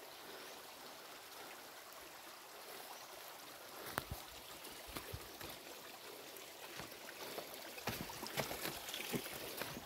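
A small hillside stream trickling over stones, a steady faint hiss of water. From about four seconds in, irregular knocks and scuffs of footsteps on the rocky path come in, more of them toward the end.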